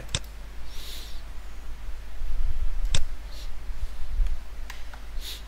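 Computer mouse clicking: two sharp clicks, one at the very start and one about three seconds in, with a few fainter ticks after it, over a steady low hum.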